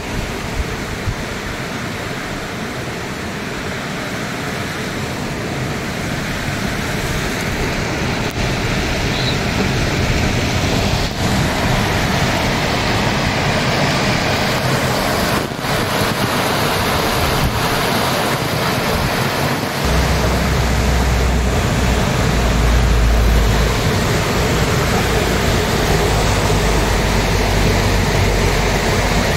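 Rushing water of the Rur river tumbling over rocks, a steady hiss that slowly grows louder. From about twenty seconds in, a low wind rumble on the microphone joins it.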